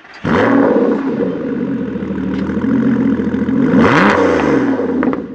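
Car engine running, with one quick rev that rises and falls back about four seconds in.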